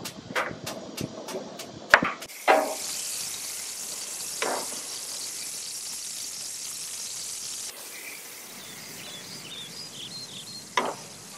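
Gas grill igniter clicking several times as a burner knob is turned, then a steady sizzling hiss of corn on the cob and meat cooking on the hot grate. Metal tongs knock on the grate a few times.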